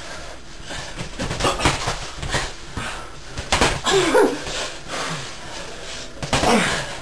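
Boxing gloves thudding as punches land during sparring, with feet scuffing on the floor and a few short voiced cries.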